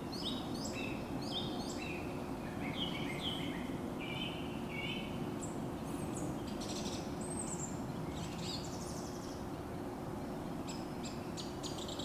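Woodland songbirds calling: a scatter of short, thin, mostly falling chirps, over a faint steady low hum.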